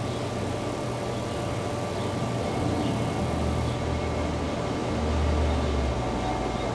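Steady low rumble under an even hiss, with a few faint steady hum tones and no distinct event; the rumble swells briefly about five seconds in.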